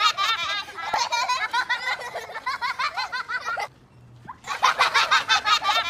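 Several young children laughing and squealing in high voices, in quick overlapping peals, with a brief lull about two-thirds of the way through.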